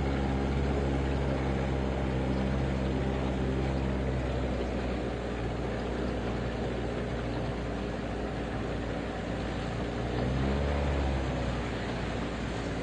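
A small fishing boat's motor running steadily under way, with a brief swell in its sound a little past ten seconds in.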